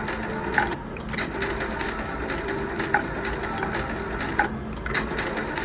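Slot machine reels spinning, with a few scattered clicks, over the steady background din of a casino floor.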